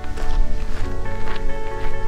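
Instrumental background music: held notes with light percussive hits, louder from its start.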